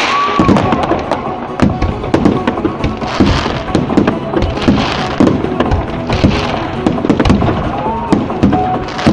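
Fireworks display: a dense run of bangs from bursting aerial shells, one after another, with crackling and hissing from rising comets.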